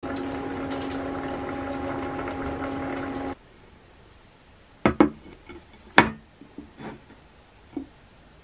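Mackerel simmering in miso broth in a pot, the liquid bubbling over a steady hum, cutting off abruptly after about three seconds. Then a few short sharp knocks and clicks, the loudest two close together near the middle.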